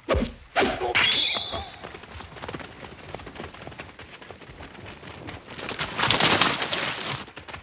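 Sword-fight sound effects: a sudden hit, then two sharp katana swishes, the second ringing off in a falling tone. Then scuffling, and near the end loud splashing as two men run through a shallow stream.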